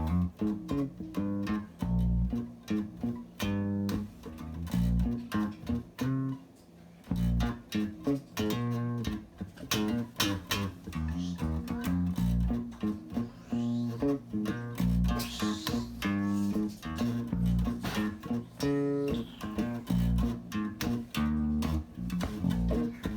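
Plucked guitar notes and short phrases played through a vintage tube compressor, with a thick, heavy low end.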